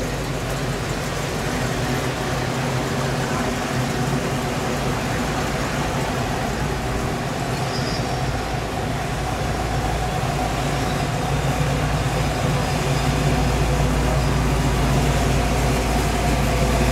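Classic car engines running at a crawl as the cars roll past, a steady low engine note. It grows louder near the end as a 1971–72 Chevelle SS's V8 rolls up.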